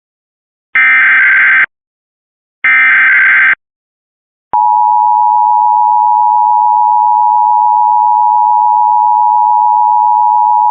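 Emergency Alert System tones: the last two of the three SAME digital header bursts, harsh data screeches about a second each. After a short silence, the steady two-tone EAS attention signal begins about four and a half seconds in.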